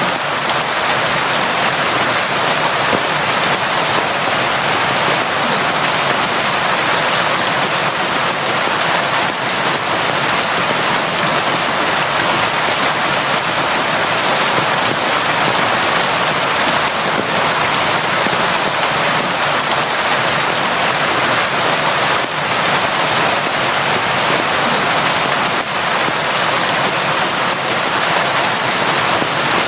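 Steady, constant rain falling, an even hiss without let-up.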